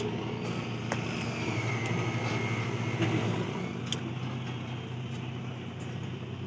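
A steady low engine hum from machinery running nearby, with a few sharp clicks as a grout hose is fastened onto an epoxy injection nozzle with binding wire and pliers.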